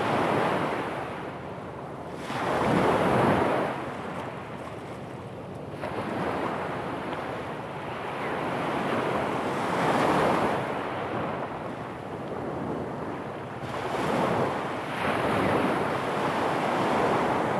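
Small waves breaking on a pebble beach, the surf rushing in louder swells every few seconds.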